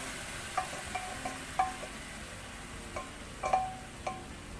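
Boiled beef chunks and their cooking liquid being scraped from a pot into a pan of masala with a spoon, which clinks sharply against the metal about seven times, over a low steady sizzle from the pan.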